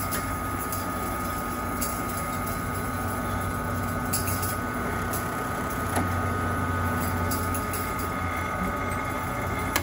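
Electric drill press running steadily while a 3/16-inch bit is fed down into a sheet of plywood.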